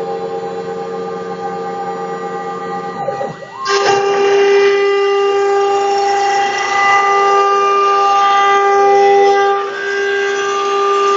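Homemade CNC machine at work cutting plywood: its stepper motors whine in several steady tones that shift in pitch, with short gliding sweeps as the axes speed up and slow down. It gets louder and changes pitch about four seconds in.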